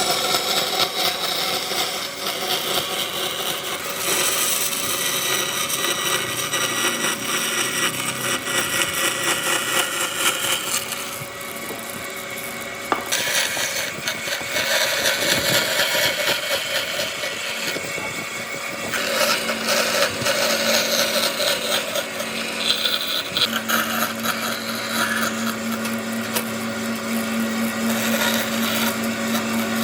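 Electric power tool running against wood, the machining noise changing several times as the work goes on. From about two-thirds of the way in, a steady motor hum sits under the noise.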